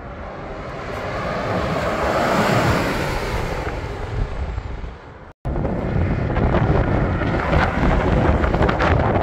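A coach bus passing close by on a highway, its engine and tyre noise swelling and fading, with wind buffeting the microphone. The sound breaks off for an instant about five seconds in, then picks up again with more wind rumble and the noise of approaching buses.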